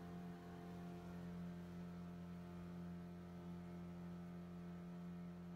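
A small motorboat's engine running steadily at an even speed, heard faintly as a constant hum with an unchanging pitch.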